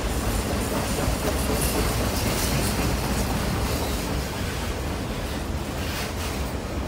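A freight train of autorack cars rolls steadily past, making a continuous rumble of wheels on rails with a few faint clicks.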